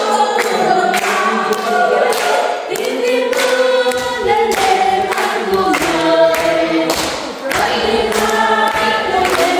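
Choir singing, with a sharp beat about once a second.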